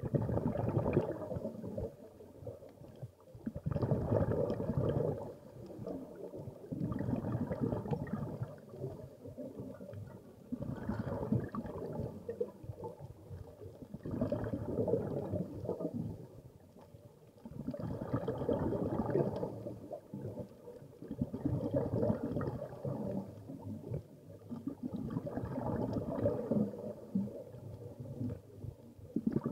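Scuba diver's exhaled breath bubbling out of the regulator underwater: a gurgling rush of bubbles that comes back about every three and a half seconds, nine times in a row, with quieter gaps between breaths.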